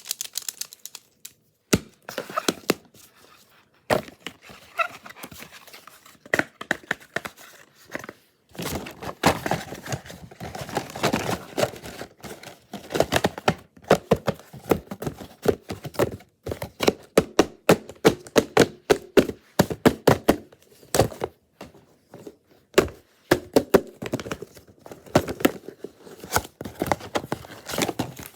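Plastic puzzle cube being twisted by hand: rapid clicking and clacking as the layers turn, in bursts with brief pauses.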